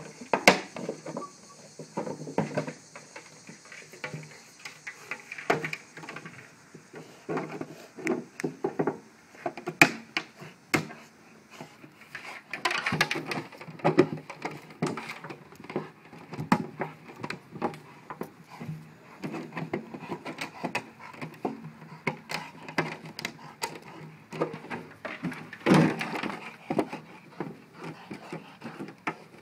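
A 5-gallon plastic water bottle being bitten, pushed and knocked about by a Rottweiler, giving irregular knocks and clatters at no steady rhythm.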